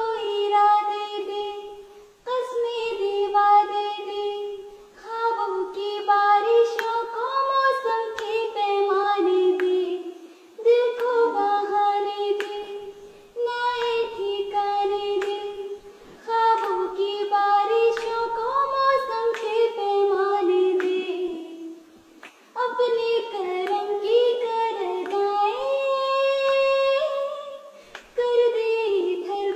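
A young girl singing solo and unaccompanied in a high voice, in melodic phrases a few seconds long with short breaks for breath between them.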